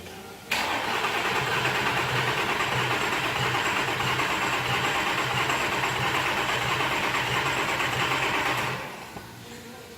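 Nissan Murano six-cylinder engine cranked on the starter for about eight seconds with the accelerator floored so it does not fire, for a relative compression test. It starts suddenly and cuts off near the end. The test shows cylinder 3 has no compression.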